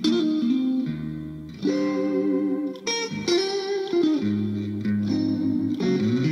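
Instrumental guitar music: a plucked guitar playing a melody over shifting chords, with some effects on the sound.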